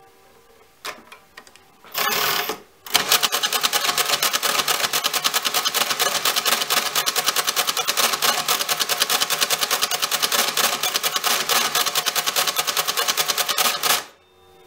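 Hamann Automat V electro-mechanical calculator running an automatic division. After a few clicks of the control lever and a brief whir, its electric motor drives the counting mechanism in a fast, even clatter of clicks for about eleven seconds, stopping abruptly when the quotient is finished.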